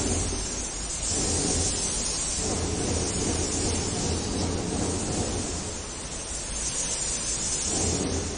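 Steady hiss-like rushing noise with a low hum underneath and no distinct events.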